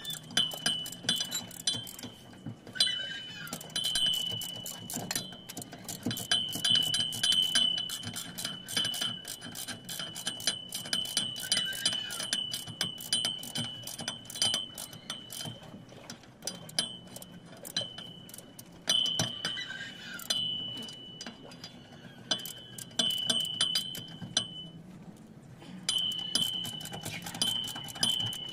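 Socket ratchet wrench clicking in quick repeated runs as a bolt is turned under the car, with a high metallic ring.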